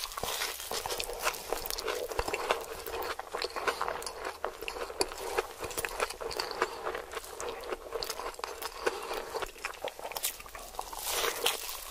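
Close-miked chewing and crunching of crispy fried food: a dense, continuous run of crackly bites and wet mouth sounds.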